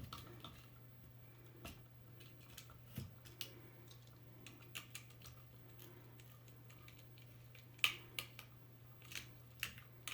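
Faint, scattered small clicks and taps as a screwdriver and wire are worked into the back-wire terminal of a Leviton USB wall outlet, over a steady low hum.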